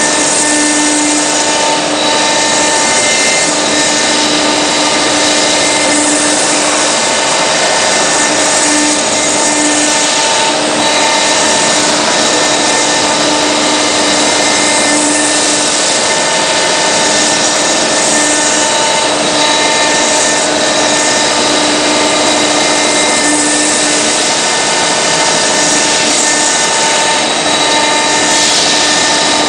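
CNC router spindle carving a marble slab, a loud steady grinding of the cutter on stone with a constant high spindle whine.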